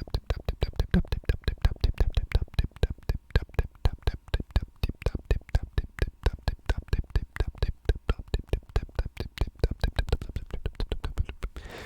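Paintbrush dabbed rapidly against the microphone in ASMR 'spit painting', a quick, even tapping of about six taps a second that stops just before the end.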